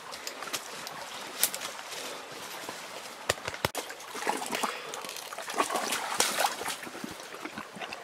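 Coonhound mouthing and chewing at a dead raccoon: wet smacking and licking, with rustling in leaves and rocks underfoot. There are a couple of sharp knocks a little over three seconds in.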